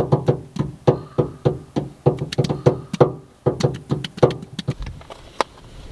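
Bare belly drummed with both hands: a quick, uneven run of hollow slaps, about three or four a second.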